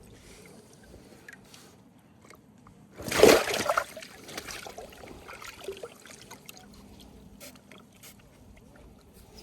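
A carp splashing at the water's surface: one loud splash about three seconds in, lasting about a second, then smaller sloshes and drips.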